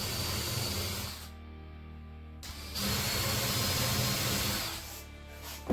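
Electric drill running in two short bursts, boring holes deeper into a wooden block; the first run stops about a second in and the second runs for about two seconds in the middle.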